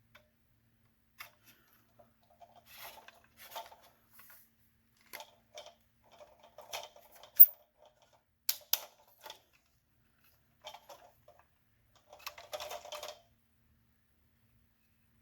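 Small plastic parts clicking, tapping and rattling as they are handled. The sharpest click comes about seven seconds in, with two more strong clicks just after, and a cluster of rattling near the end.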